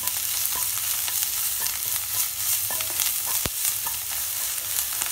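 Ginger, garlic, green chilli and coriander paste sizzling in hot oil in a kadai, stirred with a wooden spatula that scrapes and taps against the pan. A sharper knock of the spatula on the pan comes about three and a half seconds in.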